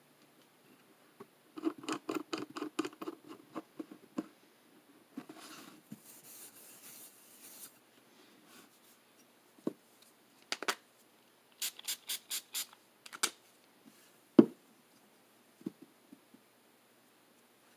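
Hands handling a Spyderco ultrafine ceramic bench stone in its holder: quick runs of clicks and taps, a soft rubbing across the stone, and one loud knock a little past the middle.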